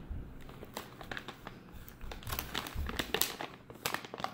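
Packaging crinkling and rustling in irregular crackles as hands dig through a beauty sample subscription box to pull out the products.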